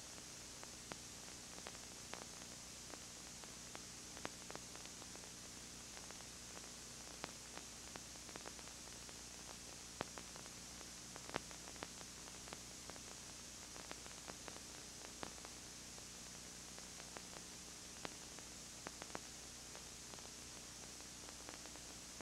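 Steady hiss and low electrical hum from a videotape played back with no recorded sound, with scattered faint clicks and crackles.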